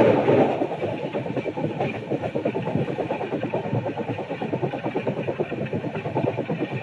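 Running noise of a moving Indian Railways passenger coach: a steady rumble with a fast, fine rattle. It is louder at the start and settles after about half a second.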